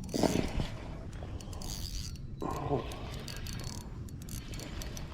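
Fishing reel clicking in quick runs of small ticks over a steady low rumble, with two short voice sounds, one near the start and one about halfway.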